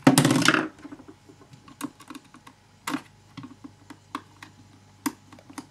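Small screwdriver taking the last screws out of an Xbox 360 chatpad's plastic case: a loud scrape right at the start, then a string of light, irregular clicks and taps of the driver and plastic.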